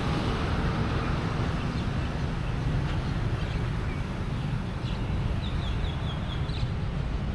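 Steady outdoor background rumble of a busy area, like distant traffic. A bird chirps a quick run of short high notes about five and a half seconds in.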